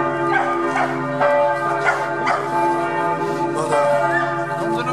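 Church bells ringing, several bells sounding together in a continuous peal.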